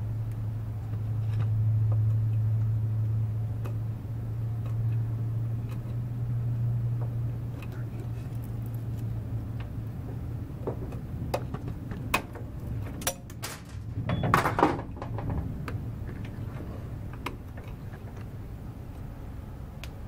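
Snap ring pliers clicking and scraping on the metal reverse assembly of a go-kart as a snap ring is worked back over the groove that holds the reverse cable's ball in its socket. There is a brief louder metallic scrape about three-quarters of the way in. A low steady hum underlies the first half and fades out.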